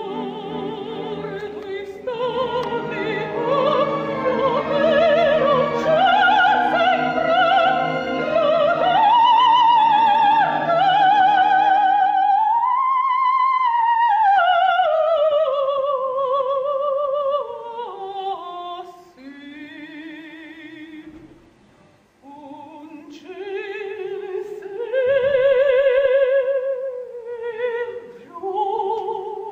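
Operatic soprano singing with wide vibrato over instrumental accompaniment. About twelve seconds in, the accompaniment drops away and the voice sings alone, holding a high note and then sliding down in a long falling run. After short phrases and a brief pause, she holds another note near the end.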